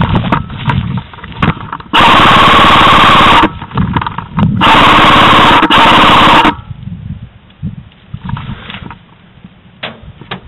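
Two long full-auto bursts from an airsoft electric gun fired close by, the first about a second and a half long and the second about two seconds, each with a fast, even buzz. Faint scattered clicks follow.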